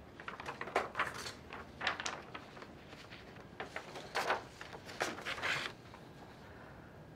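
Sheets of paper rustling in several short bursts as pages are handled and turned.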